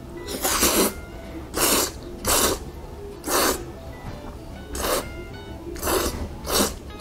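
A person slurping thick noodles in about seven quick, noisy slurps, with soft background music underneath.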